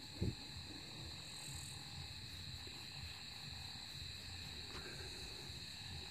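Steady, high-pitched chorus of night insects, several even tones held without a break. A brief thump sounds just after the start.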